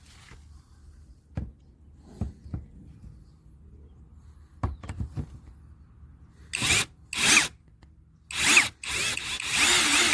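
AKZWOXRO 21 V cordless drill driver run in short bursts, four times in the second half, the last and longest about a second, its motor whine shifting in pitch as it speeds up and slows. A few light knocks of handling come before.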